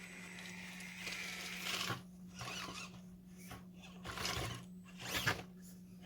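Axial SCX24 micro crawler's 50T brushed motor and gear reduction whirring in short spurts as the truck crawls slowly over course obstacles. A steady low hum runs underneath.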